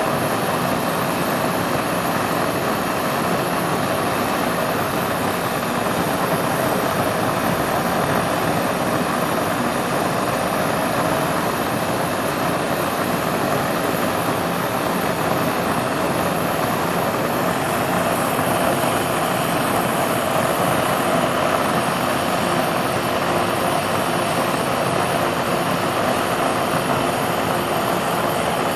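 Gas blowtorch flame burning with a steady, unbroken rushing hiss.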